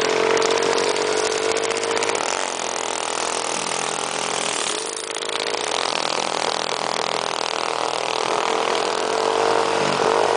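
Minibike's small engine running under steady throttle, heard from the bike while riding, with a broad rushing noise. About halfway through the engine note eases off briefly and then picks up again; near the end the pitch rises slightly and falls.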